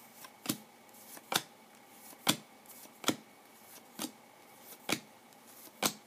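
Football trading cards being flipped through one at a time, each card moved from the front of the stack to the back with a short, sharp snap. There are seven evenly spaced snaps, about one a second.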